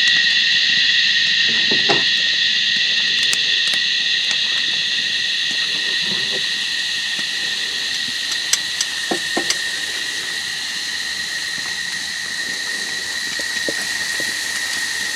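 Steady insect chorus: a dense high buzzing drone with no break, loud throughout, with a few faint knocks scattered through it.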